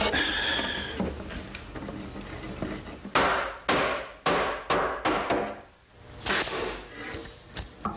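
A hammer driving finish nails into a wooden cabinet: four sharp blows about half a second apart a few seconds in, then a louder sharp crack with a hiss near the end. A brief squeak comes at the start.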